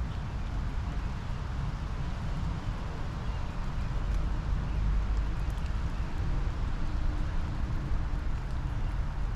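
Steady rain shower falling, an even hiss of rain with a steady low rumble underneath.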